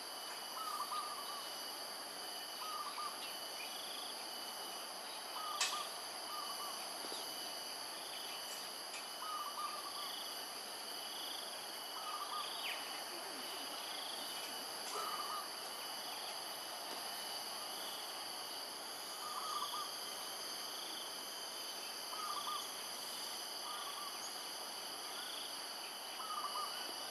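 A steady high-pitched insect drone, with a bird repeating a short doubled call about every two seconds. A single sharp click sounds about six seconds in.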